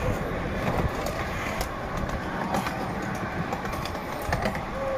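Miniature ride-on train rolling along its track: a steady rumble from the wheels with scattered clicks and clacks.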